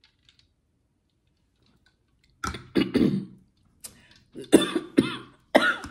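A woman coughing in a fit of several sharp coughs in quick succession, starting about halfway in, because something she swallowed went down the wrong pipe.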